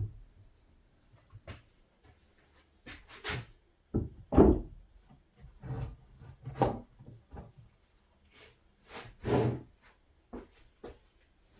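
Wooden door frame kit parts being handled and knocked together during assembly: a series of irregular thumps and knocks with pauses between them, the heaviest about four and nine seconds in.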